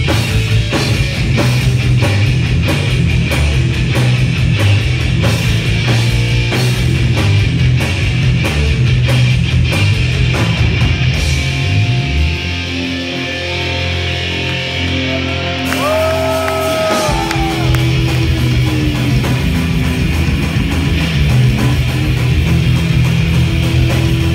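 Crossover thrash band playing live and loud: fast drums, distorted guitar and bass guitar. About halfway through the drums drop out for a few seconds, leaving a held bass note and bending guitar notes, then the full band comes back in.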